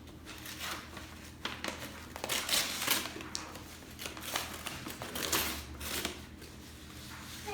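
Gift wrapping paper being torn and crumpled as a present is unwrapped, in irregular rustling bursts.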